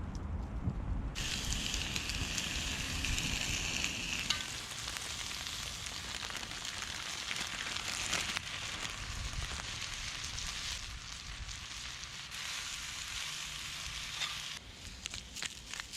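Food sizzling as it fries on a hot pan or grill over a campfire, starting suddenly about a second in as a steady hiss and thinning out near the end.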